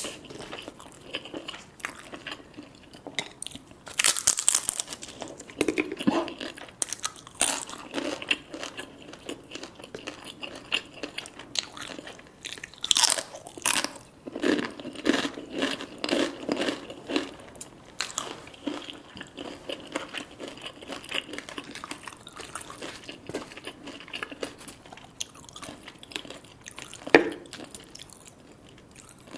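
A person eating crispy deep-fried food close to the microphone: crackling bites and crunchy chewing. A few louder crunches stand out, about 4 s, 13 s and 27 s in.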